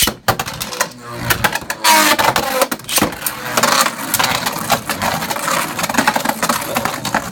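Two Beyblade Burst tops, Wonder Valtryek and Vise Leopard, launched into a plastic stadium with a sudden start, then spinning and clashing. Rapid clicks and rattles come from the tops hitting each other and the stadium rails.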